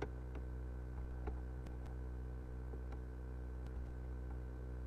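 Steady low electrical hum, with a few faint, sharp clicks scattered through it.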